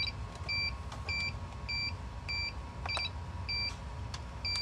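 DJI FPV remote controller in binding mode, giving short high-pitched beeps that repeat evenly a little under twice a second while it searches for the air unit. A couple of faint clicks come about three seconds in.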